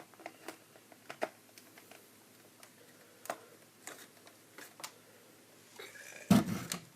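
Light plastic clicks and taps of toy playset pieces being handled and fitted together, as a tower piece is slipped onto a plastic castle, with one louder knock a little past six seconds in.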